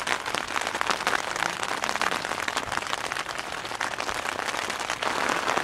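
Steady rain pattering on the tent's rainfly, heard from inside the tent as a dense, even patter of drops.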